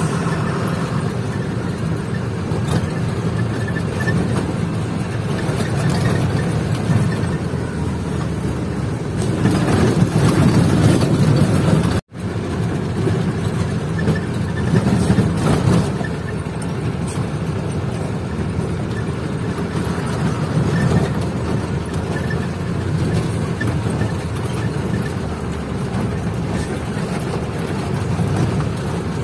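Truck engine running steadily as the truck drives along, heard from inside the cab, with a brief gap about twelve seconds in.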